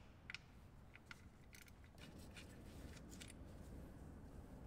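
Faint, scattered clicks and rustling of gloved hands working on the vent hose and its fitting at the top of the automatic transmission.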